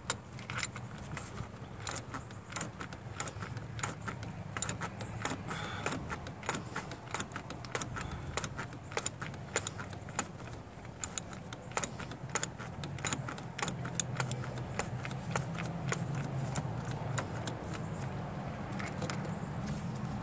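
Hand socket ratchet clicking in runs of quick strokes, working a bolt loose near the thermostat housing of a 3.8 V6 engine; the clicks thin out near the end.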